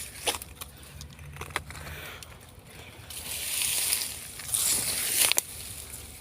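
Rustling and snapping of dry leaves and brush underfoot as someone pushes through undergrowth, with scattered twig cracks at first and a louder stretch of rustling about three seconds in.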